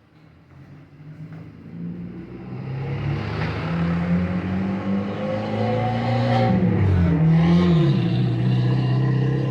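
A motor vehicle engine coming closer, growing from faint to loud with a steady pitch that dips briefly about seven seconds in.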